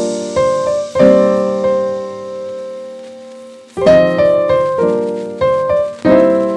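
Background music: piano chords struck in groups and left to ring out and fade.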